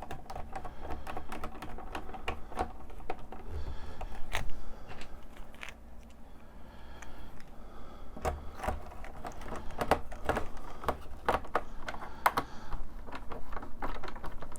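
Small screws being driven by hand to fasten the top circuit board of a 1984–89 Corvette digital instrument cluster: an irregular run of small clicks and taps.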